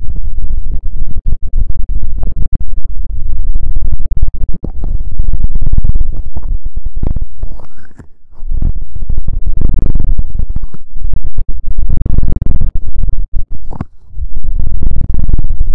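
Fast, dense scratching and rubbing right on a microphone, an ASMR ear-massage trigger. It is loud, with heavy rumble under the scratches and a short break about halfway through.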